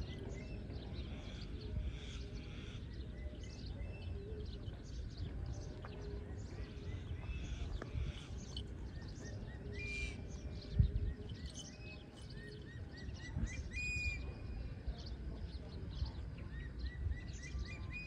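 Small birds chirping and twittering in short repeated notes over a steady low rumble. One brief thump comes near the middle.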